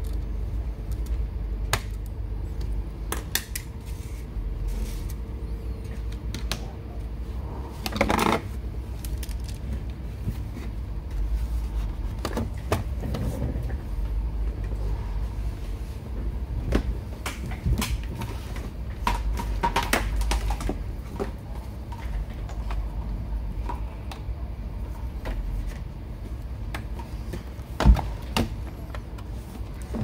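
Small screwdriver turning screws into a laptop's plastic bottom cover, then handling of the laptop as it is turned over and its lid opened: scattered light clicks and knocks over a steady low rumble, the sharpest knock near the end.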